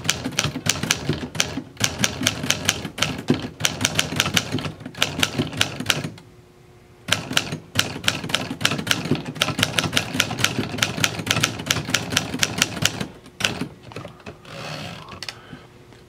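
Keys and typebars of a 1957 Remington Quiet Riter manual portable typewriter striking in a fast run of sharp clacks. The typing pauses for about a second midway, then thins to a few strokes near the end.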